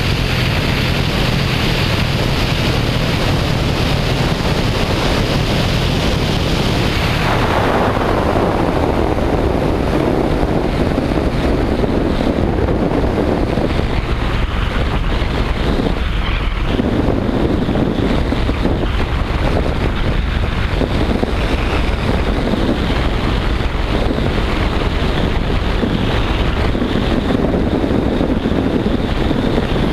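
Wind rushing over an outside-mounted camera on a Citroën DS3 WRC rally car at speed, with the car's 1.6-litre turbocharged four-cylinder engine running beneath it. The rush turns duller about seven seconds in as the car slows.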